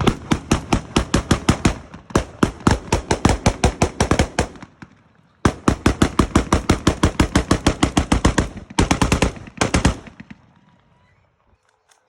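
Rapid gunfire, several shots a second, as magazines are emptied in quick succession: one long string, a brief pause about five seconds in, then a second string and a short final one that stops around ten seconds in.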